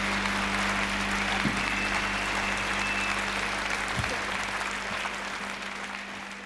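Audience applause, fading out near the end, over a steady low hum.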